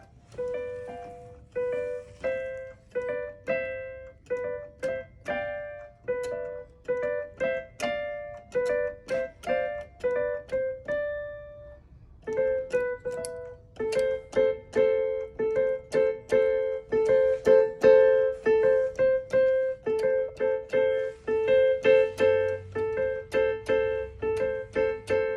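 Piano played one note at a time, a simple line that keeps returning to the same note. After a short pause about halfway, the notes come quicker and louder, repeating that note steadily.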